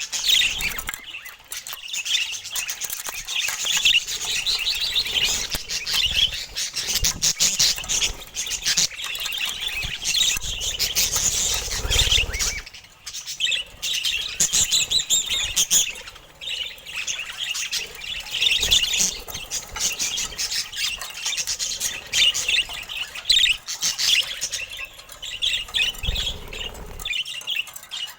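Budgerigars chattering and warbling continuously in fast, dense chirps and squawks, with a few low thuds about twelve seconds in and again near the end.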